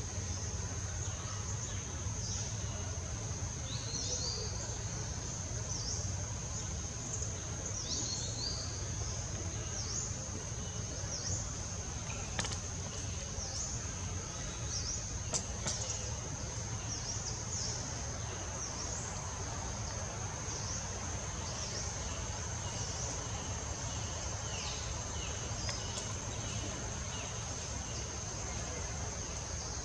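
Forest ambience: a steady high-pitched insect drone, with many short chirps sweeping down in pitch scattered over it, typical of small birds calling, above a low even background rumble.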